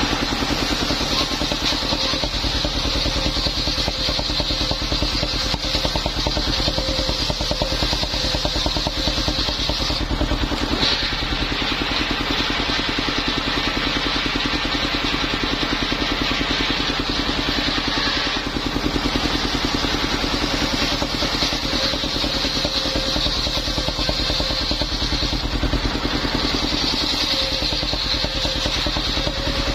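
Engine-driven mobile circular sawmill running steadily, its engine firing evenly under a high hiss from the saw, which dips briefly about ten seconds in and again a little later.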